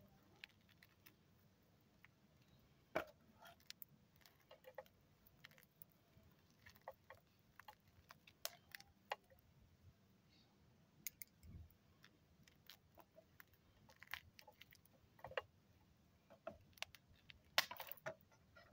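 Faint, irregular crackles and clicks of potting soil crumbling and fine roots pulling apart as a jade plant's root ball is broken up by hand, with two louder snaps about three seconds in and near the end.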